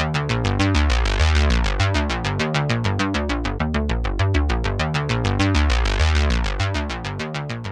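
Electronic synthesizer intro music with a quick, even pulse of notes over a bass line, fading out near the end.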